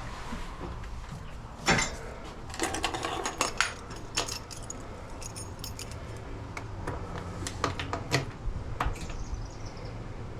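A string of sharp metallic clicks, clanks and rattles, like parts or controls being handled, over a steady low hum.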